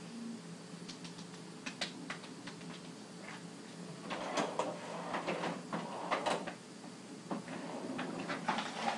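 Handling noise: scattered clicks, then a denser spell of rustling and clattering, busiest from about four to six and a half seconds in, as equipment and supplies are moved about.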